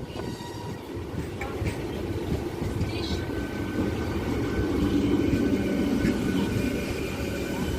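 Train running along the track, a steady rumble of wheels on rails that grows louder toward the middle.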